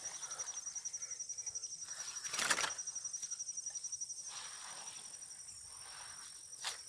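Insects trilling steadily in a high, rapidly pulsing tone, like crickets in the grass. Soft rustles of someone moving through grass run under it, with one louder brief rustle about two and a half seconds in.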